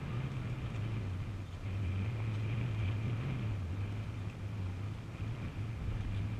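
Motorboat engine running at idle: a steady low hum whose pitch wavers slightly, with a faint steady high whine alongside.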